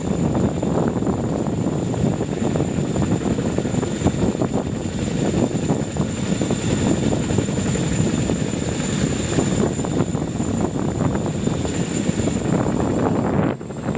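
CH-47 Chinook tandem-rotor helicopter hovering low over water: a loud, steady, rapid chop of the rotor blades over the hiss of rotor-wash spray, with a steady high whine.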